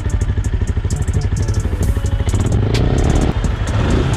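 Benelli Imperiale 400's single-cylinder engine idling with an even, pulsing exhaust beat, heard close to the muffler. The engine note swells briefly a little past two seconds in.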